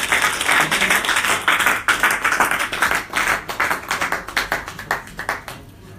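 Audience applauding, a dense clatter of hand claps that thins out and dies away over the last couple of seconds.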